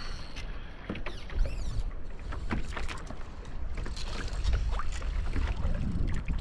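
Low rumble of wind and water around a fishing kayak, with scattered small clicks and knocks from fishing gear and bait being handled on board.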